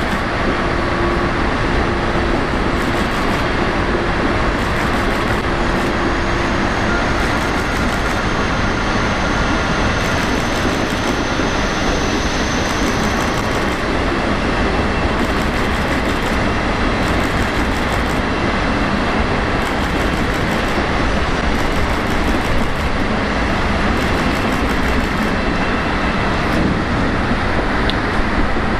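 Train running at a station platform: a steady, even rumble and hiss with a faint whine through the first half.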